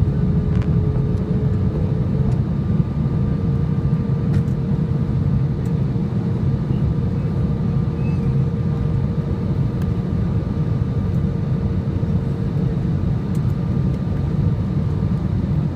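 Steady in-cabin noise of a Boeing airliner's jet engines and airflow: a loud low rumble with a steady hum on top that steps up slightly in pitch about three seconds in.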